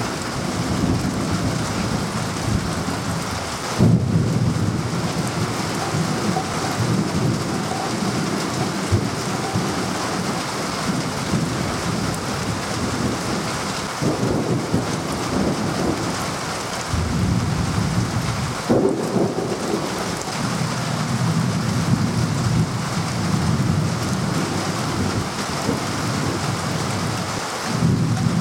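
Thunderstorm: steady heavy rain with rumbles of thunder rolling in several times, loudest about four seconds in and again near the end.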